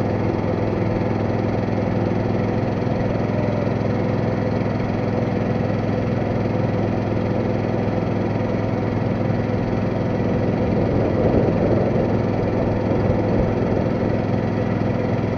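Boat engine running steadily at a constant speed while the boat cruises up the river, with a low, even hum.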